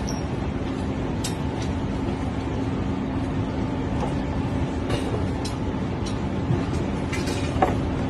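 Steady low rumbling background noise with a faint steady hum, broken by a few short light clicks and knocks, the loudest near the end.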